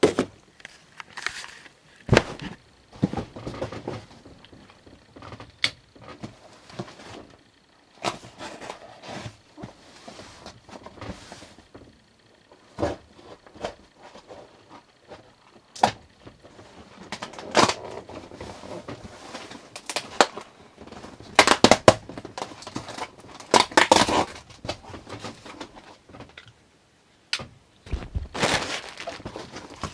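A cardboard shipping box being opened by hand: irregular knocks and clicks with rustling and scraping of cardboard and packing, and several louder scraping or tearing sounds about a second long in the second half.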